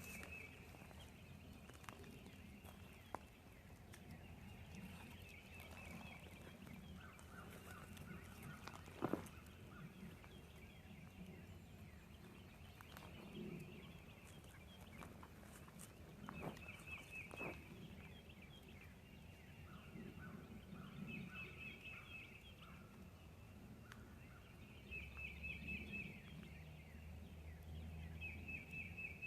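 Faint wild turkey yelping, runs of evenly spaced notes heard twice, amid repeated quick high trills of small songbirds. A couple of sharp knocks come about nine seconds in, and a low rumble near the end.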